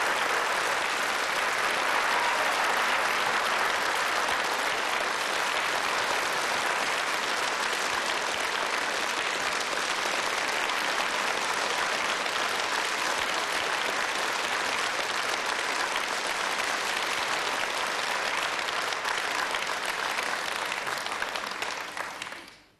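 A theatre audience applauding, a dense, steady clapping that fades out near the end.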